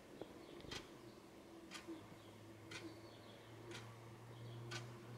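A clock ticking faintly and evenly, about once a second, over a low steady hum.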